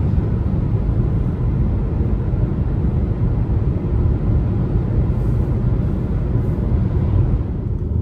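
Steady low rumble of a vehicle on the move: road and engine noise.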